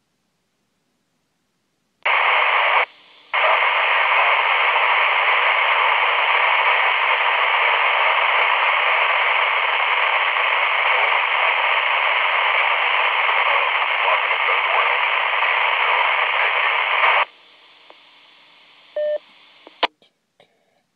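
FM two-way radio receiver hissing loudly as a noisy, unreadable signal opens its squelch for about fifteen seconds, with a brief break early on. It then drops to a quieter open carrier with a short beep, typical of a repeater courtesy tone, and ends in a squelch-tail click.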